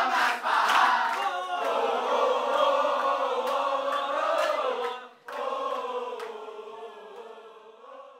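A group of young people singing together in unison on long held notes, with rhythmic clapping in the first second or so; the singing breaks off briefly about five seconds in, then fades away toward the end.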